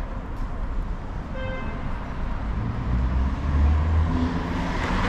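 Street traffic: a motor vehicle's engine and tyre noise swelling as it passes along the road, growing louder through the second half. A brief tone sounds about a second and a half in.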